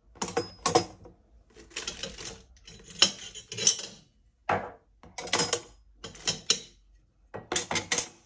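Stainless steel cutlery clinking and rattling in a plastic drawer organizer, in a string of short bursts about a second apart.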